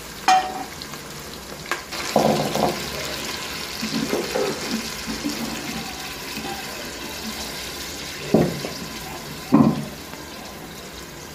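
Sliced onions and ginger-garlic paste sizzling and bubbling in hot oil in a pressure cooker, a steady hiss broken by a few brief louder bursts, the loudest near the end.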